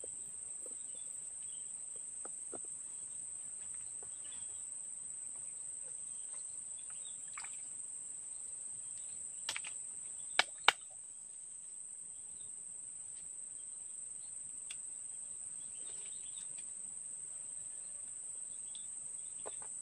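Insects making a steady, high-pitched drone. Two sharp clicks come about halfway through.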